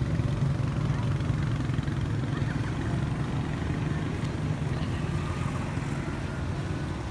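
A motor vehicle engine running steadily nearby, a low even hum.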